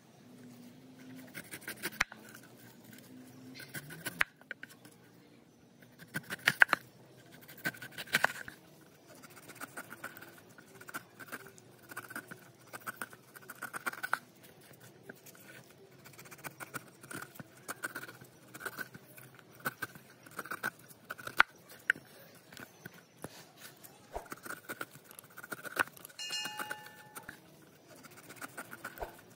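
Large chef's knife cutting and paring a fresh pineapple on a wooden board: repeated crunching, scraping cuts through the tough rind and juicy flesh, with sharp clicks as the blade meets the board.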